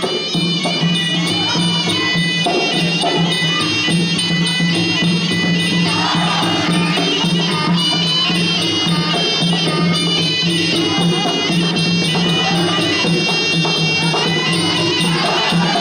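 Traditional Khmer boxing ring music: a shrill reed pipe, the sralai, playing a continuous wavering melody over a steady low drone and percussion, with no break.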